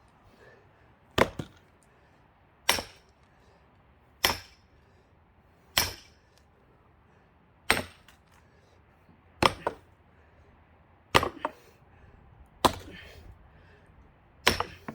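Heavy blows struck into a pine log, about nine, roughly one every one and a half seconds, each a sharp crack with a brief ring. They are struck to work loose an axe wedged fast in the split log.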